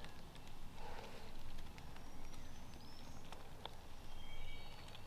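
Dry leaves and twigs crunching and rustling underfoot on the forest floor, in scattered irregular clicks, with a small bird's thin, high whistled notes in the second half.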